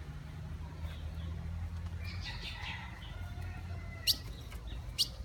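Small birds chirping: a short run of calls about two seconds in, then a couple of sharp, high, very short chirps near the end, over a steady low hum.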